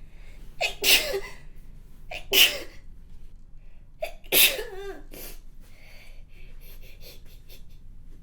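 A woman sneezing three times, about a second and a half apart, each sneeze led by a quick intake of breath; hay-fever sneezes brought on by pollen, with a runny nose.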